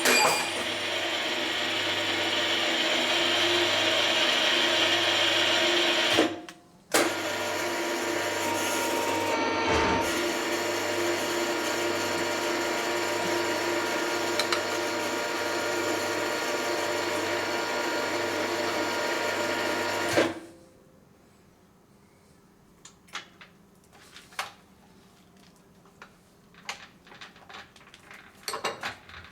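A geared metalworking machine tool running steadily, with several held tones from its motor and gearing. It drops out briefly about six seconds in, then stops abruptly about twenty seconds in, leaving a few light clicks and taps.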